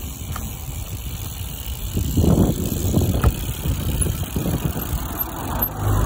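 Bicycle being ridden on a tarmac road: tyre and road noise with a sharp knock from the bike about three seconds in.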